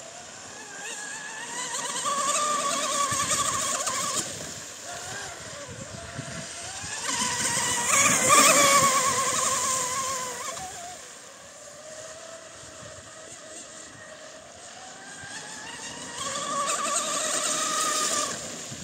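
Volantex Atomic RC speedboat's brushless electric motor whining at high speed over three passes. Each pass swells as the boat comes near and fades as it runs off, and the middle pass is the loudest.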